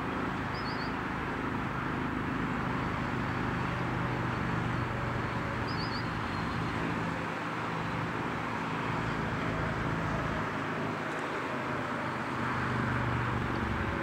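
Steady road traffic noise with a low engine hum. A bird gives two brief high chirps, about half a second in and again about six seconds in.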